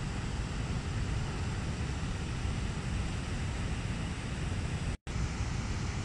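Waterfall rushing steadily over rocks, a constant even roar of falling water. The sound drops out completely for an instant about five seconds in.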